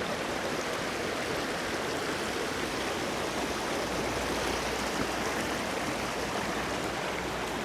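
Steady rushing of creek water flowing over rocks, heard close up at the stream's edge.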